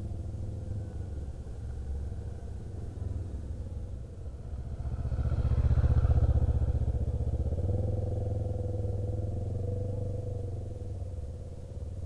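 A motorcycle engine running as the bike rides slowly past close by. It grows louder to a peak about halfway through, then fades as the bike moves away.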